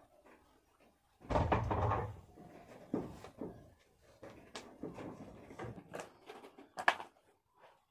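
Knocks and rustles of things being handled, with a heavy thump about a second in and scattered lighter clicks and knocks after it.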